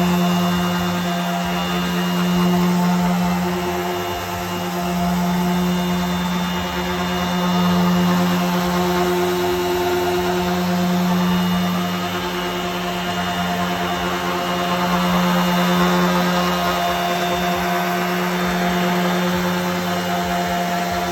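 Metabo HPT cordless random orbital sander running steadily while sanding wood, a constant motor hum whose loudness swells and eases every few seconds.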